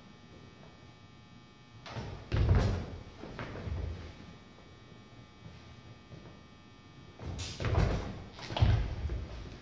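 Fencers' feet thumping and stepping on a wooden floor as they pass and lunge in a side-sword drill, in two bursts: one about two seconds in and one about seven seconds in, each with a few brief sharp clicks.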